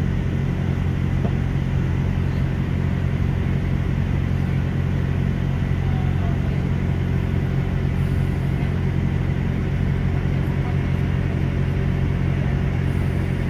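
Steady low drone of a Class 166 diesel multiple unit's underfloor diesel engines and running gear, heard from on board the moving train. It holds an even level throughout.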